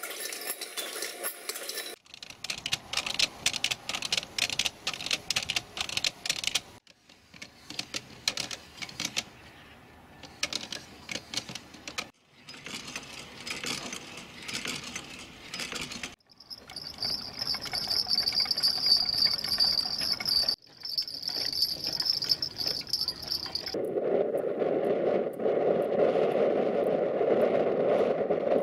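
Small automata mechanisms clicking and clattering as they are hand-cranked, in several separate stretches. Later comes a steady high whine for several seconds, and near the end a steady rushing noise.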